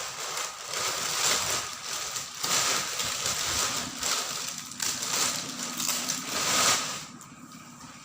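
Plastic packaging crinkling and rustling irregularly as a backpack is pulled out of its wrapping; it dies down about a second before the end.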